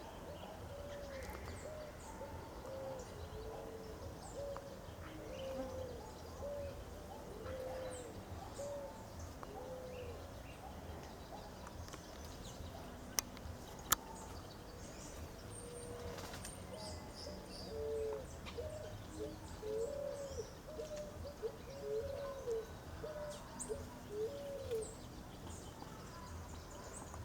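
A bird calling a long series of short, low hooting notes, about one and a half a second, in two bouts with a pause between them. Faint high chirps from other birds run underneath, and two sharp clicks sound near the middle.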